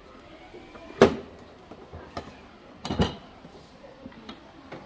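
Hard plastic knocks from a children's pedal tractor with a front loader being handled: two sharp knocks about two seconds apart, the first the louder, with a few lighter clicks between.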